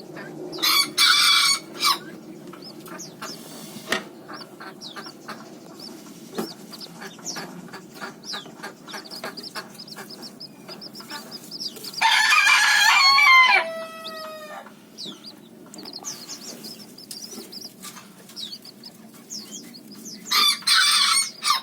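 A rooster crows three times, the middle crow ending in a long falling note. Between the crows, small chicks peep in many short, high chirps.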